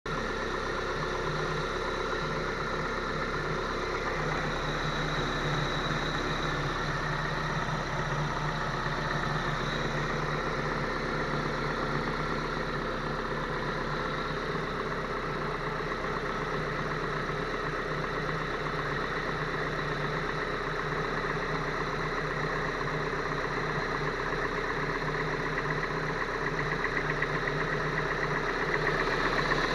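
Geely Emgrand EC7's 1.8-litre engine idling steadily with a knock, the fault the owner is recording.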